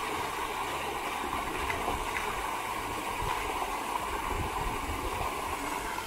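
Small cascade waterfall on a river, water rushing steadily.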